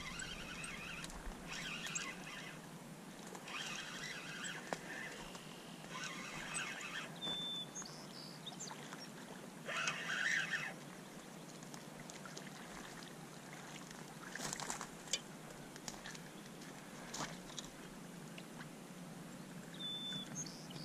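A hooked channel catfish being reeled in to the bank: the fishing reel is cranked in short bursts of about a second, with the fish splashing at the surface, loudest about ten seconds in. There are scattered lighter splashes and clicks as it comes into the shallows.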